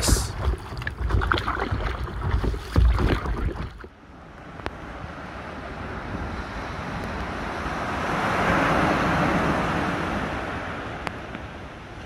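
Gusty wind on the microphone out on the sea for about four seconds, then surf on a sandy beach: a wave breaking and washing in, swelling to its loudest about nine seconds in and easing away.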